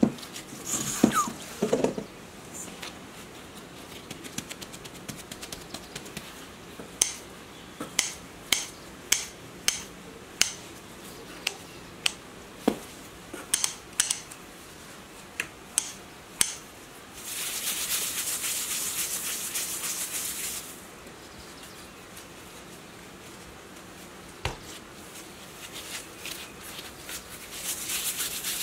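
Yeast dough being punched down in a stainless steel bowl, a few soft thumps, then a metal bench scraper cutting the dough on a floured countertop, with a sharp tap about once a second as the blade meets the counter. After that come a few seconds of steady rubbing, and near the end hands rolling a piece of dough against the countertop.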